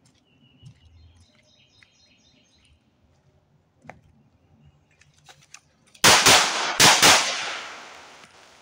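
Four shots from a Walther PPQ SC subcompact 9mm pistol fired one-handed, in two quick pairs under a second apart, about six seconds in; the echo rings on and fades over the following second or so.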